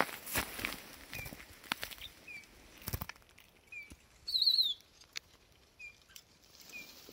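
Rustling and crunching in dry grass and thin snow, with a faint, short, high chirp repeating every second or so. About four seconds in, a small songbird held close gives one loud, brief, wavering high call.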